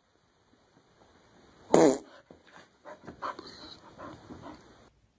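Grey pit bull-type dog letting out one loud, short bark-like cry about two seconds in, followed by a run of quieter, broken grumbles and whines.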